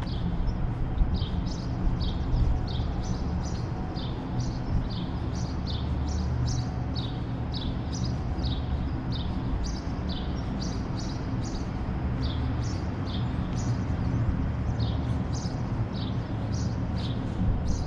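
Small birds chirping over and over, short high falling notes about two or three a second, over a steady low rumble of city traffic.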